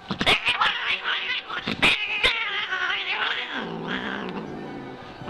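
An angry Scottish Fold cat yowling in a wavering, high cry broken by several sharp spits. About three and a half seconds in it drops to a lower, falling growl that fades away.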